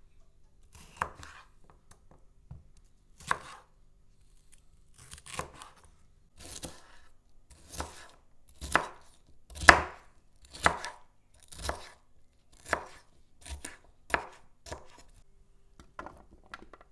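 Chef's knife cutting a red bell pepper on a wooden cutting board: single cuts about a second apart, coming a little quicker later on.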